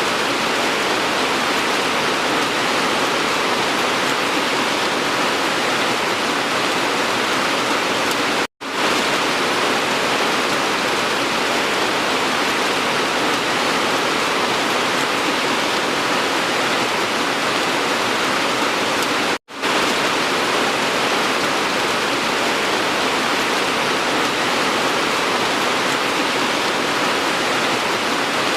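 Steady, dense rain hiss. It cuts out abruptly to silence twice, about 8.5 and 19.5 seconds in, and fades quickly back in each time, as at the joins of a looped recording.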